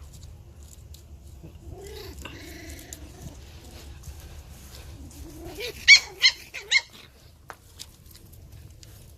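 Dogs growling low, then three sharp, high-pitched puppy yaps in quick succession about six seconds in.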